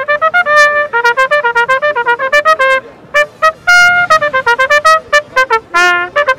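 Solo trumpet playing a fast frevo phrase of short, separated notes. A short break comes about three seconds in, then a held note and more quick notes.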